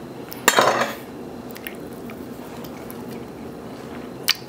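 Metal knife and fork clinking and scraping on a wooden cutting board while a burger patty is cut. There is a short, louder scrape about half a second in and a sharp click near the end.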